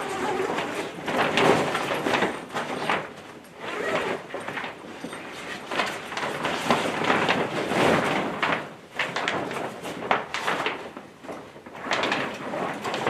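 Rustling and scraping of a mylar-lined grow tent's fabric cover being handled and pulled over its steel frame, coming in irregular bursts.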